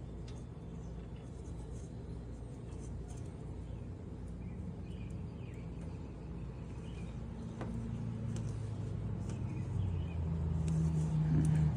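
A vehicle engine running in the background, growing louder over the last few seconds, with a few faint clicks.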